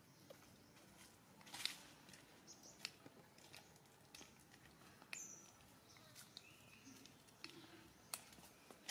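Near silence: quiet outdoor ambience with faint scattered rustles and clicks, and a brief high chirp about five seconds in.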